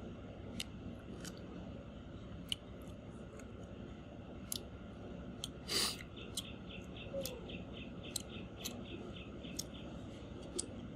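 A person eating: chewing with scattered sharp clicks and crunches, and a louder crunch about six seconds in. Just after it, a quick run of short high chirps, about four a second, lasts for a few seconds.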